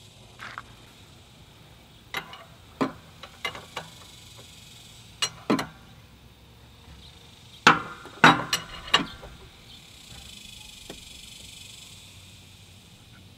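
Sharp metal clinks and knocks from a 24 mm combination wrench being fitted onto and worked against a plug under a Vespa LX engine's crankcase, about a dozen irregular strikes, the loudest pair about eight seconds in.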